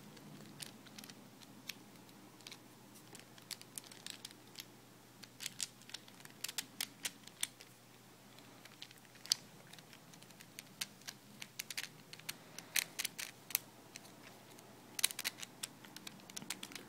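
Plastic pieces of a 4x4x6 twisty puzzle cube clicking and tapping as they are handled and pushed into place during reassembly. The light clicks come scattered, in several quick flurries.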